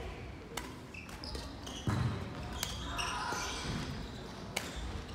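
Badminton play: sharp racket-on-shuttlecock hits about every two seconds, with footfalls and short high squeaks from shoes on the court floor.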